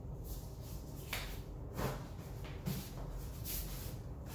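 Handling sounds as disposable gloves are pulled on and tissue wipes a vanity countertop: a few short, soft swishes and rustles spread through the seconds.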